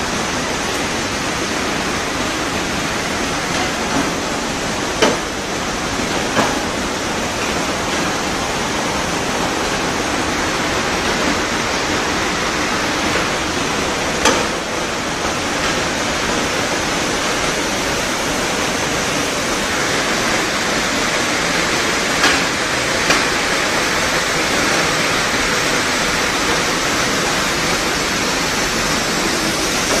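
Wool scouring machine running: a steady rushing noise like pouring water, with a few short sharp knocks along the way.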